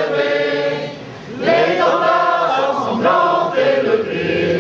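Large crowd singing together in unison, in long held notes, with a short break about a second in.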